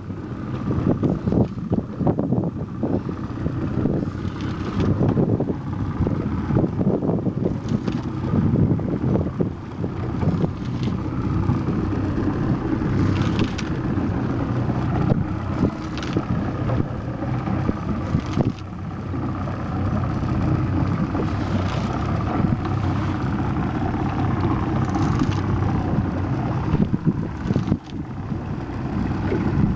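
Small fishing boat's engine running steadily, with wind buffeting the microphone.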